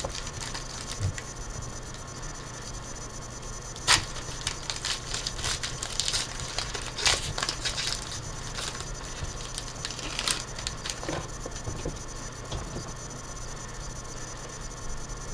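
Foil trading-card pack wrapper crinkling and tearing as it is opened by hand, with sharp crackles about four seconds in, again from about six to eight seconds and near ten seconds, then softer rustling of cards being handled.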